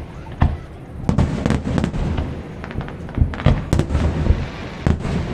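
Aerial fireworks shells bursting in a barrage: about eight sharp bangs at uneven intervals, each trailing off in a rolling rumble, with crackling between them.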